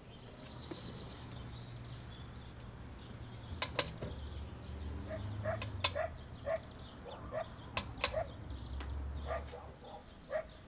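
Small sharp clicks and clinks of coins and a purse being handled as money is counted out, more frequent in the second half, over a low steady hum.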